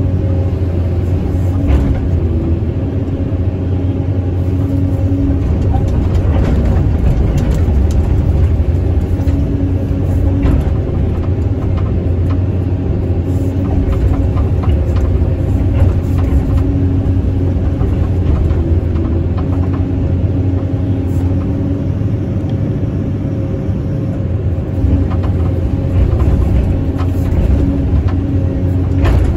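SANY SY215C excavator's diesel engine running steadily under digging load, heard from inside the cab: a constant low hum with a higher tone that swells and fades as the machine works. Scattered short clicks and knocks sound over it.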